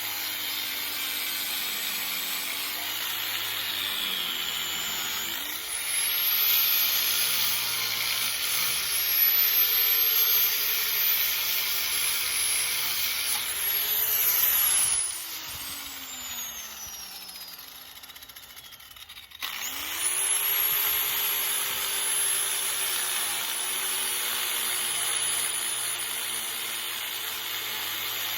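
Angle grinder grinding paint off a door hinge, its motor pitch dipping and rising as it bears down on the work. About halfway through it is switched off and spins down with a falling whine, then starts up again a few seconds later and keeps grinding.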